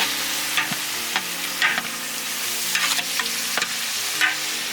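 Chopped onions and tomatoes sizzling in hot oil in a large pot, stirred with a ladle that scrapes against the pot every second or so.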